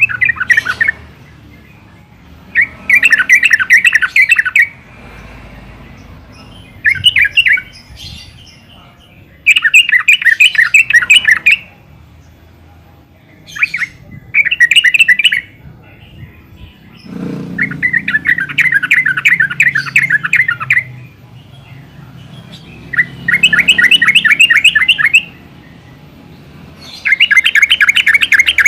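Yellow-vented bulbul singing: about nine loud phrases of fast, repeated notes. Each phrase lasts from under a second to about three seconds, with short pauses between them.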